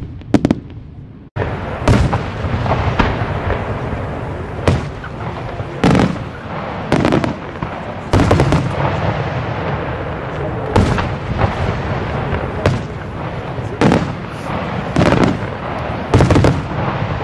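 Aerial firework shells bursting: a couple of sharp bangs, then about a second in a dense crackle and rumble starts abruptly, with loud booms every second or two.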